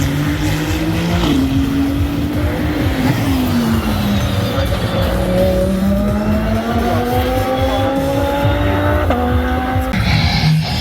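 GT3 race car engine at high revs. Its pitch steps about a second in, falls away, then climbs steadily for several seconds under acceleration, with a sudden gear change near the end.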